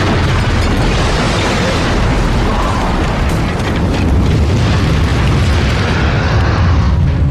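Continuing blast of a submarine exploding at a dock: a loud, dense rumble with strong deep bass, the higher hiss dropping away near the end.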